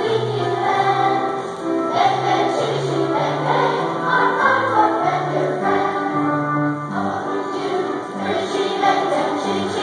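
Children's choir singing a song together in unison, the notes held and changing without a break.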